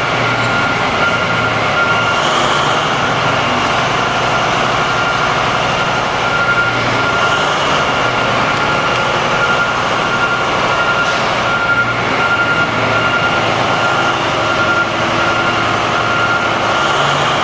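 Engine of a Liebherr T 284 diesel-electric mining haul truck running steadily while it stands, a constant heavy machine sound with a thin steady whine in it.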